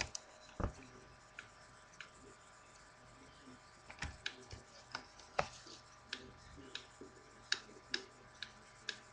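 Plastic clicks and taps of a Transformers Dark of the Moon Starscream action figure being handled and posed by hand, with a low thump under a second in and a scatter of sharp clicks, most of them in the second half.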